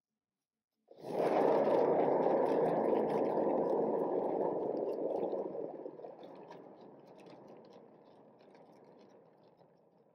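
A turntable under a wet acrylic-pour canvas is spun by hand, starting with a whir about a second in and running loud for a few seconds. It then fades steadily as the spin slows down.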